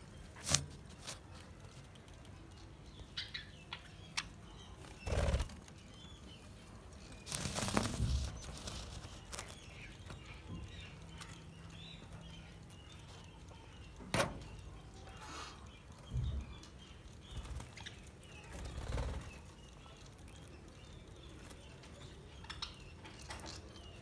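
Aviary of budgerigars: soft chirping and chatter, broken by several short, louder rustling bursts such as wing flutters.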